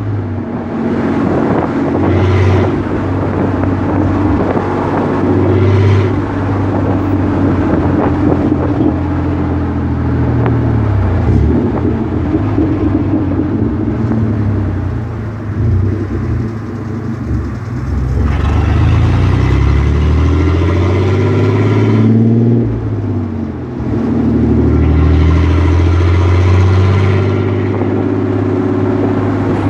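Chevrolet Blazer's V6 engine running under way, its note climbing and falling several times as it revs. There is a sharp drop about 23 seconds in, and then it climbs again.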